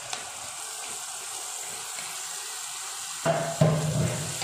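Onions and freshly added tomato purée sizzling in hot oil in a non-stick frying pan, a steady hiss. About three seconds in there is a brief, louder sound.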